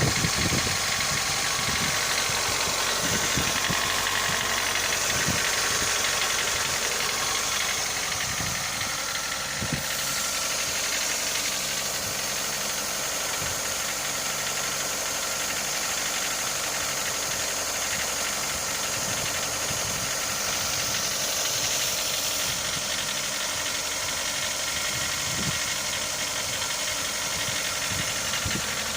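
Mitsubishi Lancer IX 1.6-litre four-cylinder engine idling as it warms up after a cold start, with irregular low thumps heard through the steady running.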